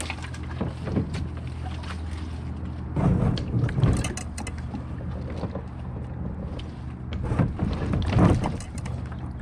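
Knocking and rustling from moving about in a kayak on the water, in two louder bouts about three seconds in and near the end, over a steady low hum.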